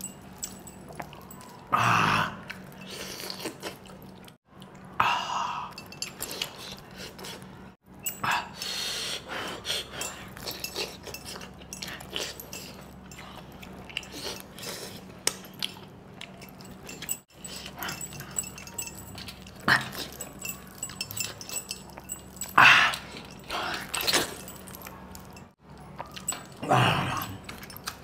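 A person eating meat curry with bare hands: wet chewing, lip-smacking and sucking meat off a mutton bone, with scattered clicks and a few louder slurps spaced through the stretch.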